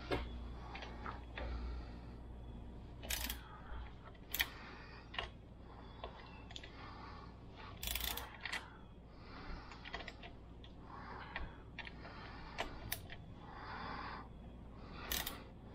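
Scattered sharp clicks and light metal taps from a small hand wrench being worked on the front axle clamp pinch bolts of a Suzuki DR650 fork, with soft handling noise in between.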